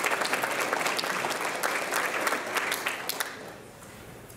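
Audience applauding, dying away about three seconds in, with a few scattered claps after.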